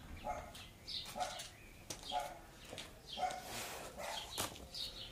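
An animal calling over and over, about once a second, with short higher chirps in between.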